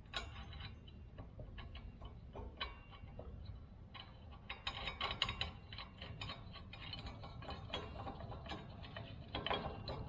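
Light metallic clicks and clinks of a welded steel angle-iron bracket and its mounting hardware being fitted by hand onto a QuickJack lift frame, in irregular runs. The clicking is busiest about halfway through and again near the end.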